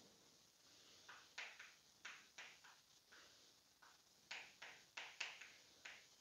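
Chalk writing on a chalkboard: a dozen or so short, faint scratching taps as words are written out.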